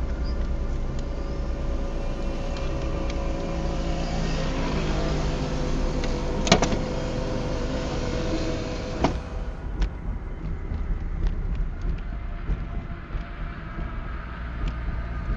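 Car driving slowly on a rough concrete road, heard from inside the cabin: steady engine and road rumble, with two sharp knocks about six and a half and nine seconds in, and lighter clicks and rattles in the last few seconds.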